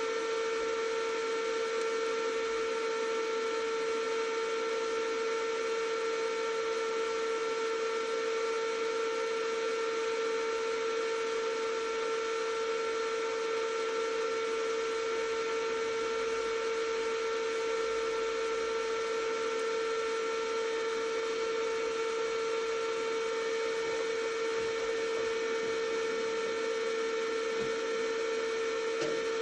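Vevor variable frequency drive and the motor it drives running, giving a steady electric whine with several overtones. The drive is in run mode even though no start signal is applied at its X terminals.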